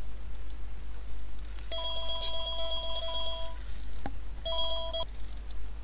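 Telephone ringing: a trilling ring of a few high tones about two seconds long, a short pause, then a shorter ring that cuts off suddenly.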